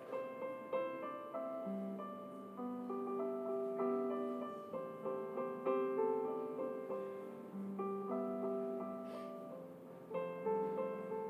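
Gentle solo piano background music: a slow run of single notes and soft chords, each note struck and left to fade.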